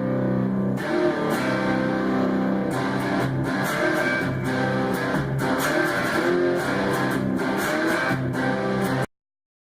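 Guitar in an alternate tuning, a chord ringing out and then strummed repeatedly, the chords sustaining between strokes. The playing cuts off abruptly near the end.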